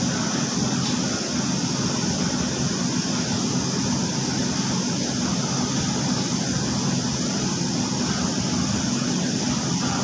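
Steady hum and rush of running machinery, unchanging throughout, typical of the machines at work in a commercial laundry.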